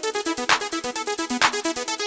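Upbeat electronic background music: a fast run of short synthesizer notes with a sharp hit about once a second.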